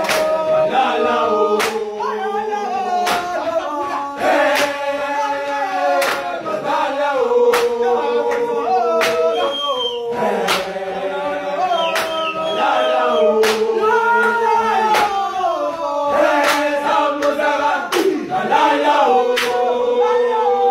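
A large group of male voices singing a gwijo, a Xhosa-style call-and-response school chant, in unison and harmony. A sharp hit keeps time about every second and a half.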